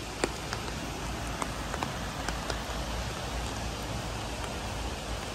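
Steady hiss of water with scattered light, irregular ticks like drips.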